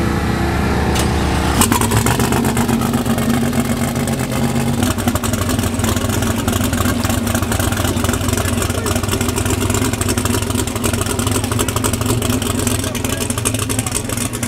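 Twin-turbo Chevrolet Silverado pickup's engine running at a steady idle just after starting.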